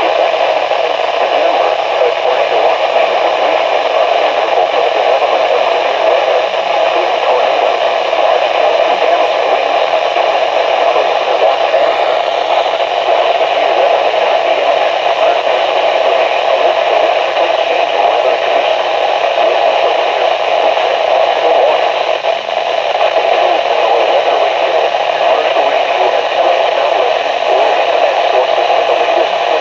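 Steady hiss of radio static from a weakly received broadcast, with no clear voice or alert tones coming through.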